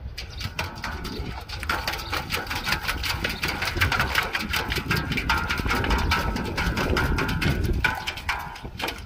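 Husky puppy pawing and splashing water in a stainless steel bowl: a rapid, dense run of splashes and slaps, busiest in the middle and easing off near the end. A low wind rumble on the microphone runs underneath.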